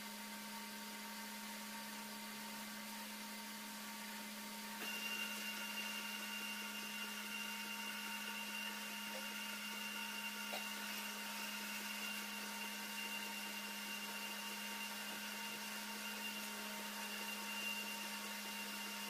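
Milling machine cutting a helical gear, running with a steady electric hum. About five seconds in it gets louder and a higher steady whine joins, then it runs on evenly.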